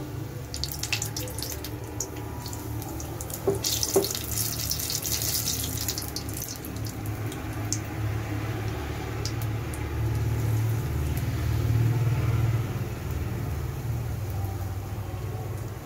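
Batter-coated cauliflower pakoras frying in hot oil in a kadhai: a sizzling hiss with crackling, densest from about three and a half to six and a half seconds in, over a low steady rumble. Two sharp knocks come about three and a half and four seconds in.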